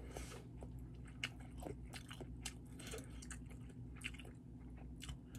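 A person chewing ramen noodles close to a headset microphone: soft, irregular wet clicks and smacks, over a faint steady low hum.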